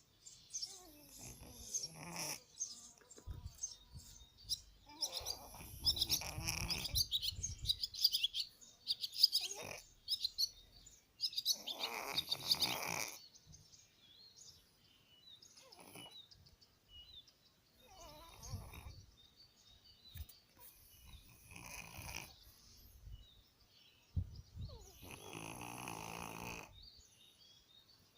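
A sleeping domestic cat snoring, one breath every two to four seconds, some snores carrying a high whistling note.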